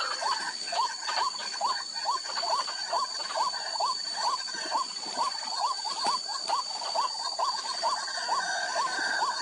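White-breasted waterhen calling: a fast, even series of short rising notes, a little over two a second. A steady high-pitched tone runs beneath the calls.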